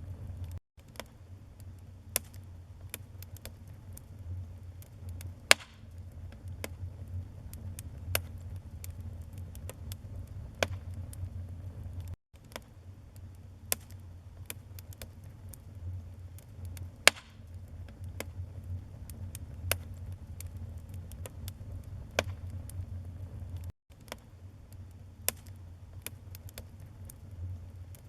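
Wood fire burning in a fireplace: a steady low rumble of flames with irregular crackles and occasional sharp, louder pops from the burning logs.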